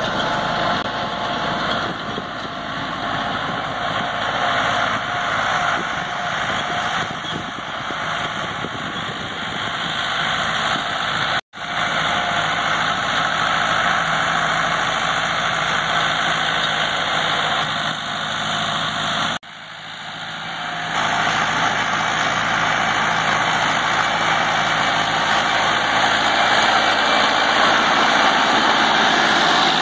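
Massey Ferguson 385 tractor's four-cylinder diesel engine running steadily under load while pulling a disc harrow through dry soil. The sound drops out briefly twice, about 11 and 19 seconds in.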